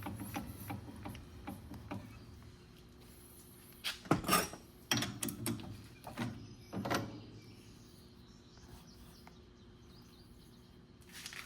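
A few short knocks and clatters of steel parts being picked up and handled, clustered in the middle, over a faint steady low hum.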